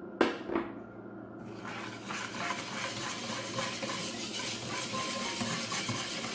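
Wire whisk beating a liquid mixture in a bowl: fast, steady scraping and sloshing strokes that start about a second and a half in. Two sharp knocks come just before it, near the start.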